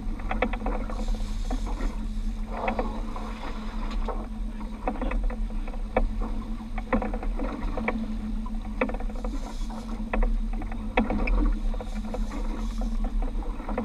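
Outboard motor running steadily at low speed, with water washing against the hull and wind on the microphone. Scattered sharp clicks and knocks come through the whole time.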